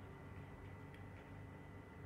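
Near silence: the faint steady hum of a powered-on open-bench PC, with a few faint ticks about a second in.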